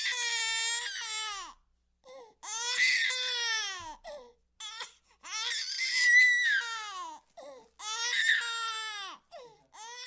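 A baby wailing: four long cries of about a second and a half each, every cry falling in pitch at its end, with short gasping breaths between them.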